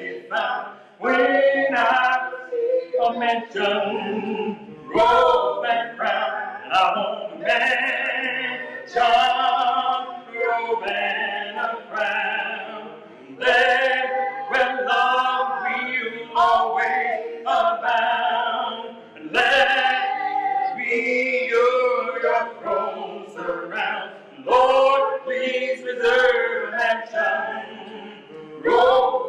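Choir singing a gospel hymn a cappella in phrases with short breaks between them.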